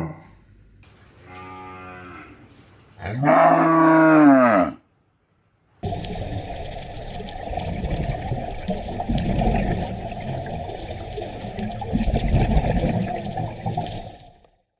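A cow mooing twice, a faint low call and then a loud one with a rising-then-falling pitch. After a short gap, about nine seconds of rough, uneven noise follows, of a source that cannot be identified.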